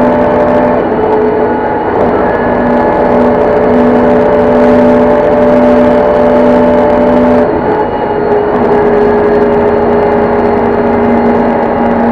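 City bus engine and drivetrain running under way, a steady whine of several held tones over road noise. The sound dips and shifts briefly about seven and a half seconds in, then settles again.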